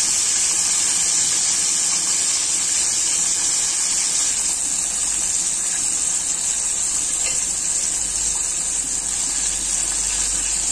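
Chicken wings frying in hot oil in a wok: a steady, even sizzle.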